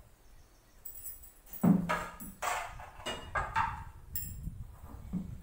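Steel kitchen pots clanking against each other and the sink, a run of sharp knocks that ring briefly, starting about a second and a half in, the first the loudest.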